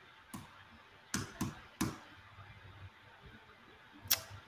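Sharp clicks of someone working a computer, four within the first two seconds and a louder one near the end, over a faint room hiss.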